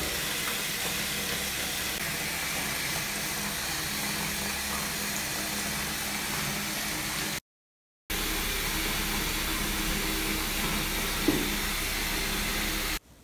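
Bath bomb fizzing as it dissolves in bathwater: a steady hiss, with a brief gap of silence about halfway through.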